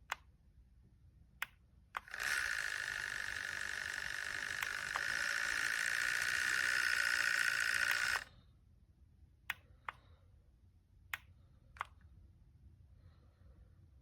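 Small handheld battery fan: button clicks, then the motor and blades running with a steady whirring hiss for about six seconds, stepping up louder about halfway, then switched off suddenly. More button clicks follow.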